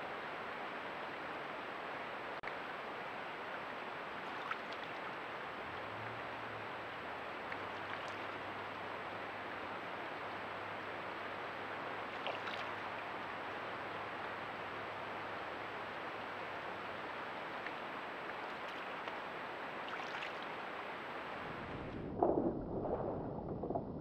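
Steady rush of flowing creek water, with a few faint ticks. Near the end a short run of louder, irregular rustles and knocks is heard.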